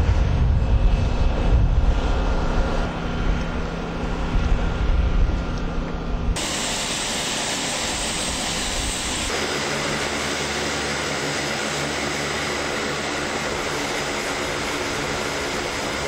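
Turboprop engines of an Air Force hurricane-hunter WC-130J aircraft: a loud, heavy low rumble with steady droning tones. It changes abruptly about six seconds in and again about nine seconds in, each time to a different steady engine drone.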